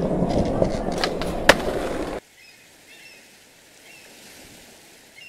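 Skateboard wheels rolling over hard ground, with a couple of sharp clacks from the board, cutting off abruptly about two seconds in. Quiet outdoor ambience with faint bird chirps follows.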